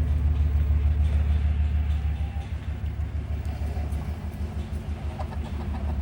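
Low, steady engine rumble of harvest machinery, pulsing evenly. Hens cluck faintly about five seconds in.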